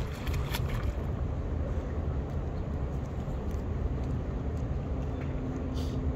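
Steady rumble of pool water and wind against a microphone at the water's surface as a small radio-controlled boat runs across the pool, with a few light splashy clicks in the first second and a faint steady hum as the boat comes close near the end.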